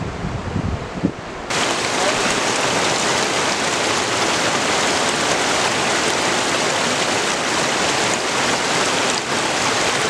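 Steady rushing of flowing creek water, starting abruptly about a second and a half in after a brief low rumble.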